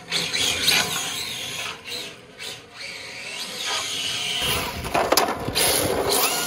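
Electric 1/10-scale RC drift car driving and sliding: its motor whines, rising and falling in pitch with the throttle, over tyre scrub on carpet. About four and a half seconds in the sound changes to the car running on block paving, with rougher, fuller tyre noise.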